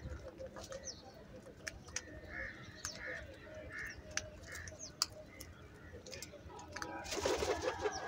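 House crows feeding on grain on concrete: sharp taps of beaks pecking the floor, with scattered soft bird calls and four short calls in a row around the middle. Near the end comes a louder rough burst.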